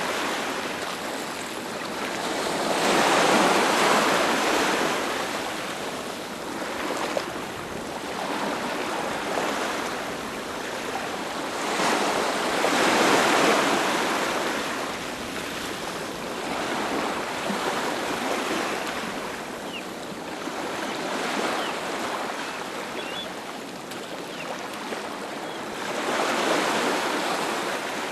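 Ocean waves breaking and washing onto a beach, the surf swelling and fading in slow surges about every ten seconds.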